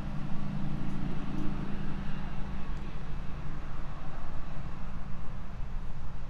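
A steady low machine hum of several fixed pitches over outdoor background noise, fading over the first few seconds.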